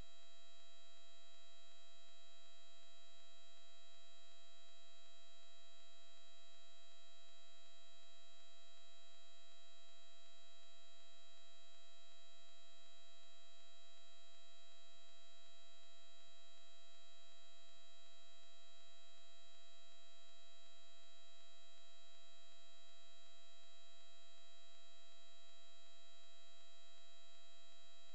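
Steady electrical hum and whine made of several fixed high tones, unchanging throughout, with no crash, impact or other event sounds.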